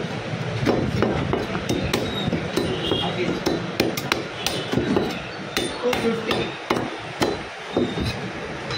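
Butcher's cleaver chopping mutton on a chopping block: repeated sharp chops at an uneven pace, roughly two a second.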